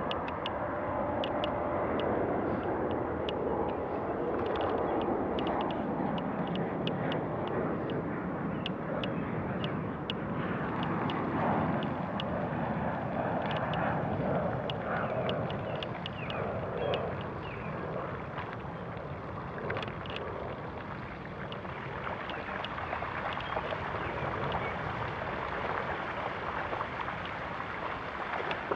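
Bicycle tyres rolling along a wet road and then through shallow floodwater: a steady rushing hiss with many small clicks and spatters.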